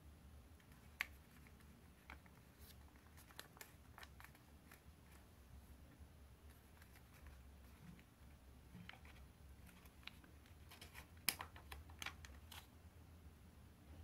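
Faint crinkles and taps of a 15 cm sheet of origami paper being folded and creased by hand, with one sharper click about a second in and a run of crisper crackles near the end.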